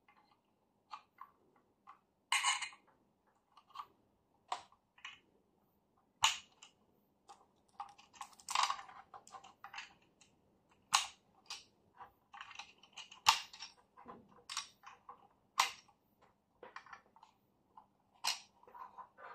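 Audio cables being plugged into the back of an Aiyima A07 MAX amplifier: irregular sharp clicks and short scrapes as RCA plugs and banana plugs are pushed into the metal-cased amp's jacks and binding posts, with handling rustle from the leads.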